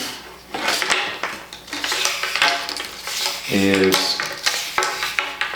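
Irregular rustling and light clattering from materials being handled on a workbench, with one short spoken word a little past halfway.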